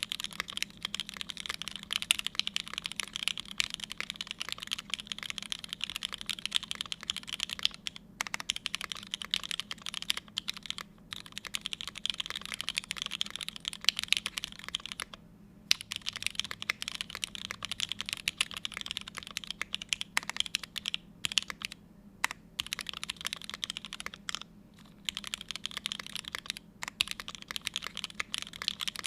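Fast continuous typing on a Forever65 mechanical keyboard with lubed linear Cherry MX Black switches on a carbon-fibre plate and GMK keycaps, built without foam. There are a few brief pauses between bursts of keystrokes.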